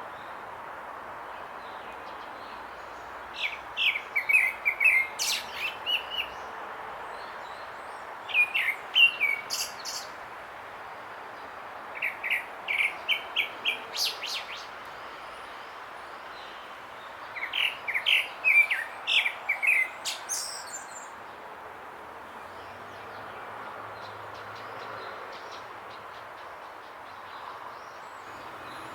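Grey-backed thrush singing four phrases of quick repeated whistled notes, each lasting two to three seconds, over a steady background hiss. The song stops about two-thirds of the way through.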